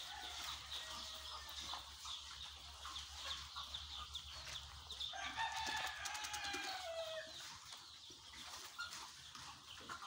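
A flock of chickens clucking and calling faintly in a wire-mesh poultry house. About five seconds in, one longer call of about two seconds, falling slightly in pitch, stands out, most likely a rooster crowing.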